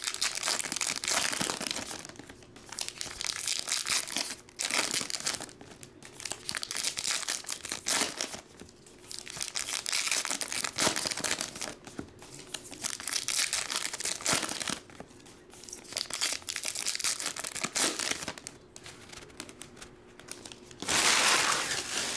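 Foil wrappers of baseball card packs being torn open and crinkled, pack after pack, in bouts of a second or two with short pauses between. The loudest crinkle comes near the end.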